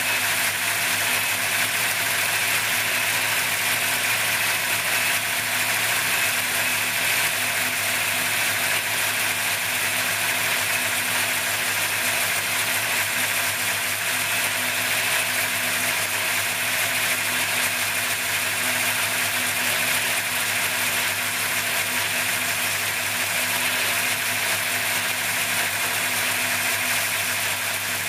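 632-cubic-inch big-block V8 idling steadily on an engine dyno, an even, unchanging running sound.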